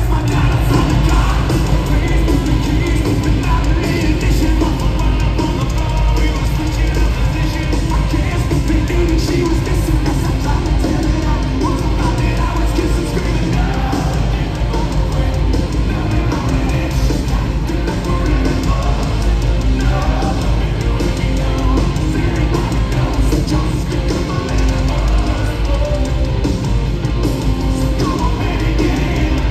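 Live hard rock band playing loud and continuously: electric guitars, bass and drums, with singing at times, heard from the audience.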